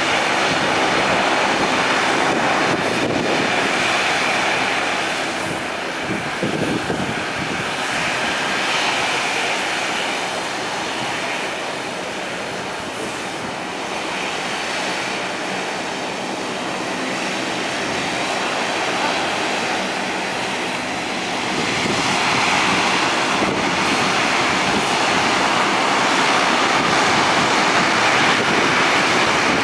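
Twin Pratt & Whitney PW150A turboprop engines of a Bombardier DHC8-Q400 running: a steady, loud engine and propeller noise with faint held tones, growing louder about 22 seconds in.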